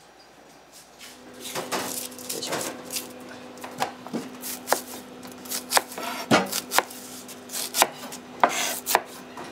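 Kitchen knife chopping onions on a cutting board. Sharp, irregular knife strikes against the board begin about a second in, one or two a second, some louder than others.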